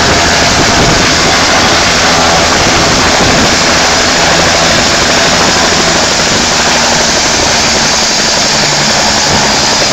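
Firefighting helicopter running loud and steady at close range, engine and rotor noise holding level throughout.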